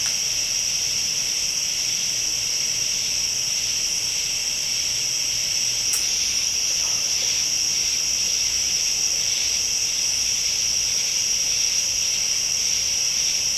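Steady high-pitched chorus of insects trilling without a break, with a faint pulse in it about twice a second.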